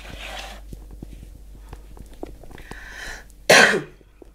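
A single short, loud cough about three and a half seconds in, with softer breathy throat sounds before it.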